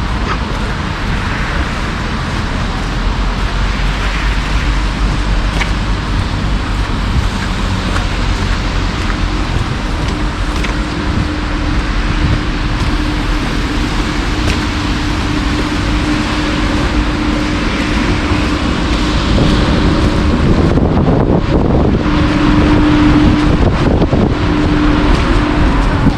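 City street traffic: cars passing with a steady rushing tyre and engine noise. A steady engine hum comes in about halfway through and grows louder near the end.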